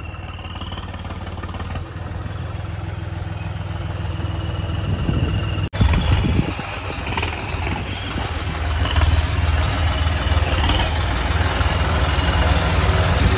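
Diesel engine of a John Deere tractor running steadily as it is driven. After an abrupt break a little past halfway, the engine is louder and closer: a John Deere 5050D driving up over rough ground.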